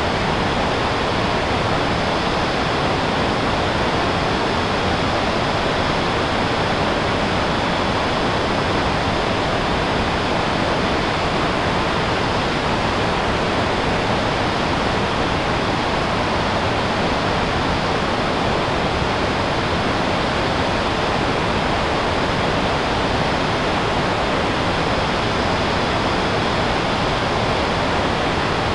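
River rapids running over rocks: a steady rush of water.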